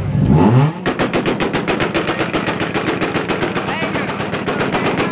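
A car engine revs up, then holds against a two-step launch-control rev limiter, firing a rapid, even string of exhaust pops at about ten a second.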